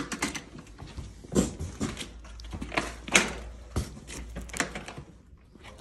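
A large cardboard bicycle box being dragged and manoeuvred out from between other boxes: a run of irregular cardboard scrapes and knocks, with two louder bumps about one and a half and three seconds in.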